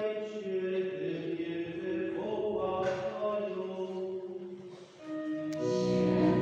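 Liturgical chant sung on long held notes, dipping briefly about five seconds in and coming back louder near the end.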